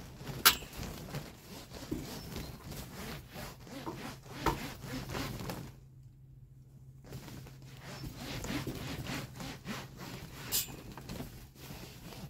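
A cloth rubbed in quick repeated strokes over the plastic film of a polytunnel greenhouse, cleaning it before tape goes on. The strokes stop briefly midway, and there is a sharp click about half a second in and another near the end.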